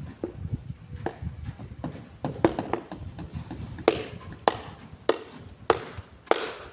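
Hammer blows on a wooden column-base form. A few lighter taps come first, then five hard, evenly spaced strikes, each a little over half a second apart, every one with a short ring.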